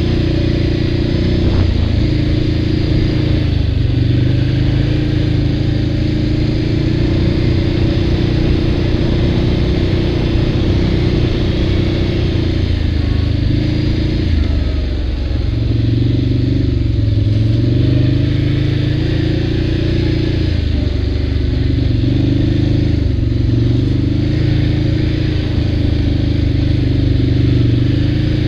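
ATV engine running under way on a dirt trail, its pitch rising and falling with the throttle; it eases off briefly about halfway through, then picks up again.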